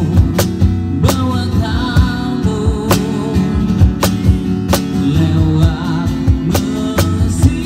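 Live band music with guitar and a steady beat, strikes falling about once a second under a wavering melody line.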